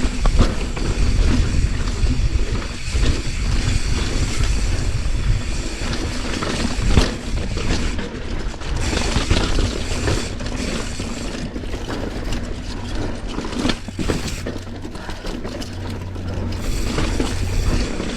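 Mountain bike descending a chunky, rocky trail: tyres rattling over rock and the bike clattering, with a steady rumble and many sharp knocks.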